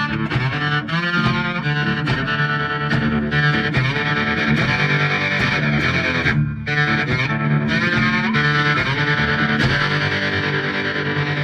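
Intro music: distorted electric-guitar rock with a steady beat, breaking off briefly about six seconds in before carrying on.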